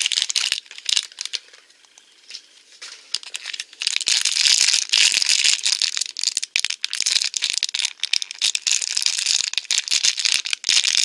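Foil blind-bag wrapper crinkling and crackling as fingers work it open. It is quieter for a couple of seconds, then loud and dense from about four seconds in.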